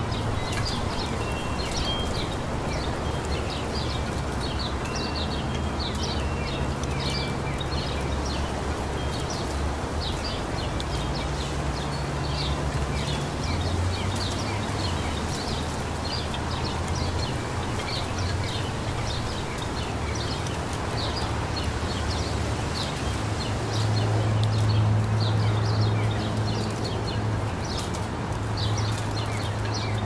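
Small birds chirping in many short, high notes scattered throughout, over the rustle of a light breeze in the trees. A low hum runs underneath and swells for a couple of seconds near the end.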